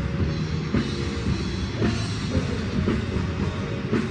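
Rock music with a steady drum beat over held guitar chords.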